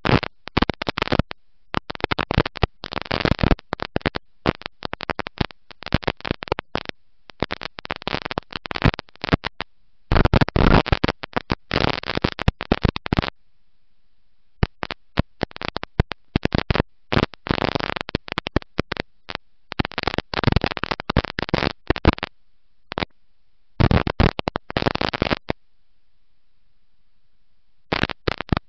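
Dirt race car running flat out, picked up by an overloaded onboard camera microphone as harsh, distorted noise. The noise cuts in and out in bursts with abrupt dead gaps between them.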